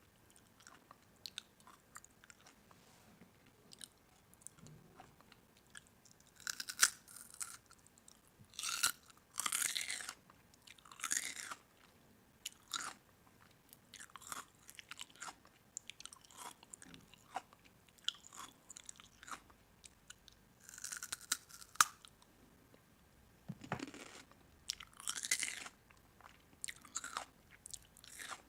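Someone biting and chewing crisp food: irregular crunches and clicks with quiet gaps between them, the loudest crunching coming in clusters about a quarter of the way in and again near three quarters.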